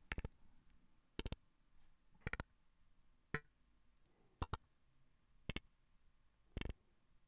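Short, clicky synthesizer blips, about one a second, from a Contour 1 function generator in loop mode on a Eurorack modular synth. Each gate pulse starts it looping rapidly, and it sounds only while the gate is high. One blip near the middle sweeps down in pitch.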